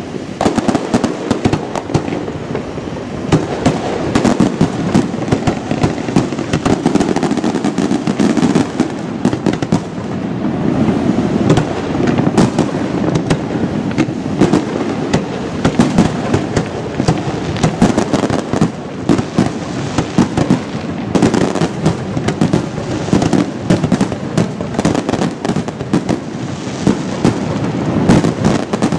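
Aerial fireworks shells bursting in a dense, continuous barrage, with many sharp bangs and crackles a second over a constant rumble.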